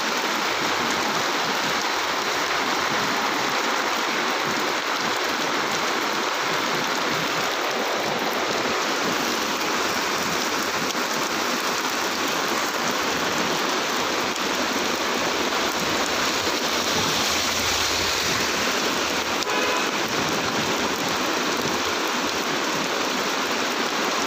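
Muddy floodwater rushing down a street that has turned into a torrent, mixed with heavy rain falling; a steady, unbroken water noise.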